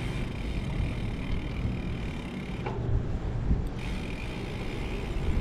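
Wind rushing over the microphone and tyre noise from a gravel bike being ridden, as a steady low rumble. A higher hiss drops out for about a second near the middle, then comes back.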